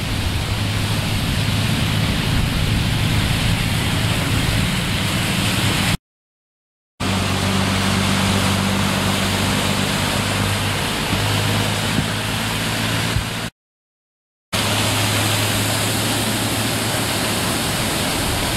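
Steady rushing water noise of vehicles driving through floodwater, over a low steady engine hum. The sound cuts out completely twice, for about a second each time.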